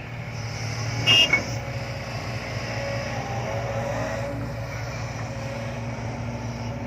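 Heavy diesel engine running steadily at the digging site, with one short metallic clank about a second in.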